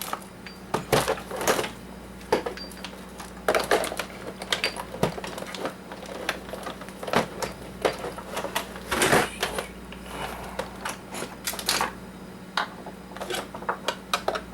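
Irregular clicks, knocks and rattles of hard plastic and metal parts being handled and worked loose while taking a coffee maker apart, over a faint steady hum.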